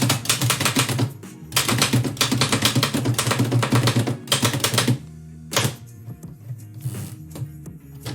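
1918 Oliver typewriter being typed on: rapid keystrokes in two bursts, a short one at the start and a longer run of about three seconds, then a few single strikes. Background music plays under it.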